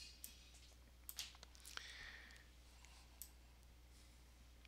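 A few faint, scattered computer mouse clicks over near-silent room tone with a low steady hum.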